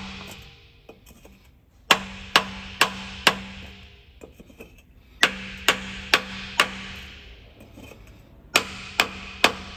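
Hammer striking a wooden block set on top of the pistons in a seized Austin-Healey Sprite's four-cylinder A-series engine: three runs of four sharp taps, about two a second, with pauses between runs. The taps are knocking the rust-stuck pistons loose in their bores.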